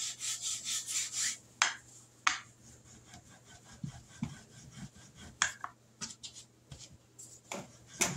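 A plastic rolling pin rubbed with flour, then rolled over biscuit dough on a floured plastic cutting board. Quick rubbing strokes for about the first second, then a few separate soft scrapes and knocks with quiet between them.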